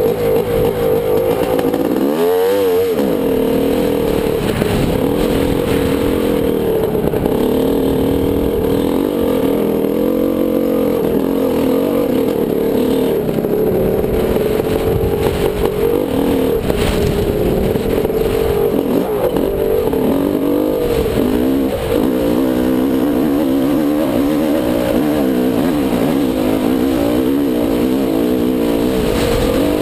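Dirt bike engine running under varying throttle as it climbs a trail, its pitch rising and falling; about two seconds in, the engine note drops sharply and climbs again as the throttle is shut and reopened.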